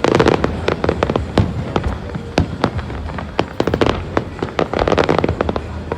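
Fireworks exploding: rapid crackling and popping bangs, thickest at the very start and again in a cluster about four to five seconds in.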